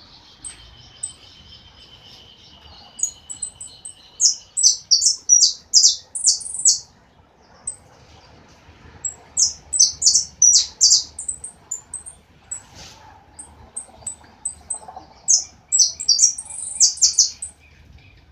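Caged saffron finch (jilguero dorado) singing: three bursts of quick, sharp, high-pitched notes a few seconds apart, with a faint steady high tone under the first few seconds.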